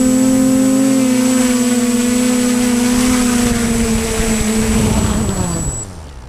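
Electric motors and propellers of a radio-controlled aircraft running steadily with a high thin whine, then spooling down after touching down: the pitch falls and the sound stops near the end, the whine cutting out just before.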